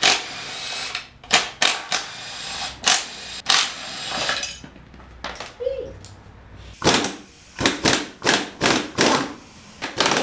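Irregular metallic clanks and clicks of hand tools, sockets and bolts being picked up and set down on and around a manual transmission case, with a quieter gap in the middle and a quicker run of knocks near the end.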